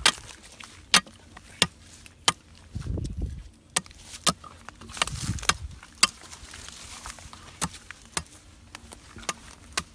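A machete chopping into a wooden branch: about a dozen sharp blade strikes, irregularly spaced, roughly one a second.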